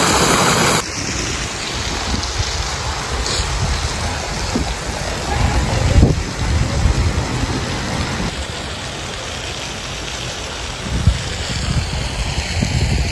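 Fountain water splashing loudly, cut off abruptly about a second in. After that, wind rumbles and gusts on the microphone over a steady outdoor hiss.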